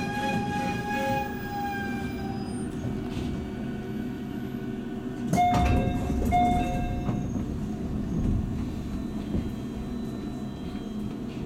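JR 211 series electric train running, heard from inside the car: a steady rumble of wheels on rails, with a traction motor whine that drops slightly in pitch and fades out about two seconds in. About five seconds in there is a sudden thump and a louder stretch, with two short steady tones.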